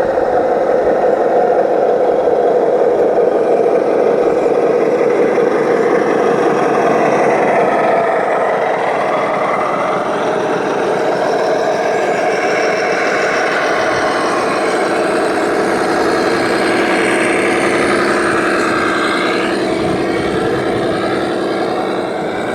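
Radio-controlled model truck's electric motor and gearbox whining steadily, the whine rising and falling in pitch as the truck speeds up and slows down.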